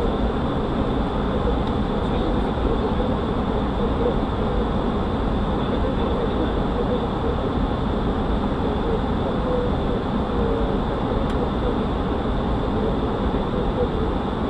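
Steady flight-deck noise of an Airbus A300-600 in descent: an even rush of airflow and engine noise, with a thin, high steady tone above it.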